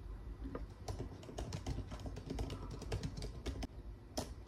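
Typing on a laptop keyboard: a quick, irregular run of key clicks, then a short pause and one more click near the end.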